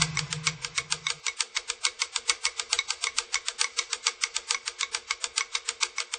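Background music stripped down to a fast, even ticking beat, about eight ticks a second, over a faint steady tone, with a low held note that stops about a second in.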